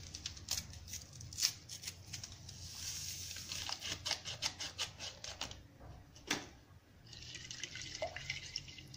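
A small paper packet of vanilla sugar is opened and its contents shaken into a glass bowl of runny egg, oil and lemon batter. Then a plastic whisk stirs the batter, with quick light clicks against the bowl.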